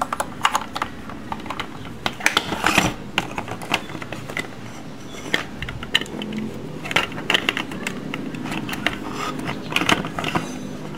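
Hard plastic parts of a toy dough extruder car clicking and clattering as they are handled, with irregular sharp clicks as the hinged hood is opened and dough is picked from the gear rollers.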